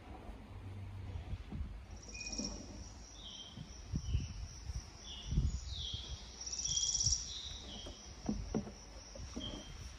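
Outdoor ambience: a steady high insect drone with short bird chirps and two brief trills, about two and a half and seven seconds in. A few soft low knocks sit under it.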